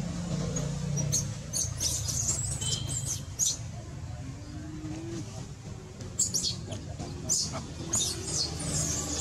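Baby monkey squeaking: short, very high-pitched squeaks in quick clusters, several in the first few seconds and more about six and eight seconds in, over a steady low hum.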